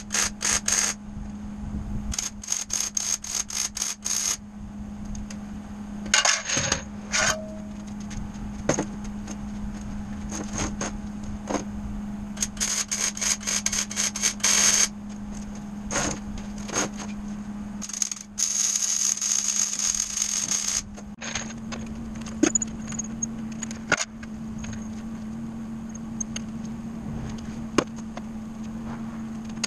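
Arc welding on a steel unistrut frame: crackling, spitting bursts of arc lasting a second or two at a time, with one longer steady sizzle about two-thirds of the way through, over a steady low hum.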